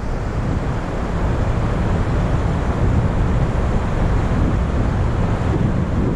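Strong gusty wind buffeting the microphone: a loud, dense rumble heaviest in the low end.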